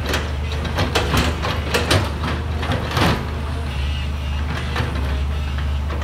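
Crawler excavator's diesel engine running steadily, with repeated sharp metallic clanks and knocks as the boom and bucket work.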